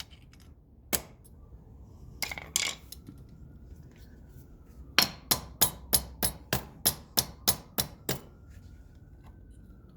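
Hammer tapping a pry bar against the teeth of a steel locking plate on a 1981 Kawasaki KZ1000's shifter. One tap about a second in and two more soon after, then a quick run of about a dozen metallic taps, three or four a second.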